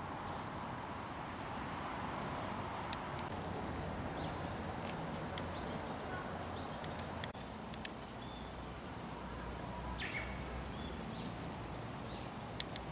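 Outdoor garden ambience: a steady high insect whine with brief bird chirps now and then and a few sharp clicks, over a low even background rumble.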